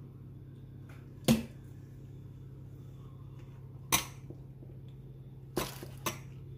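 Four sharp knocks of a metal spoon and cookware, the first about a second in and two close together near the end, over a steady low hum.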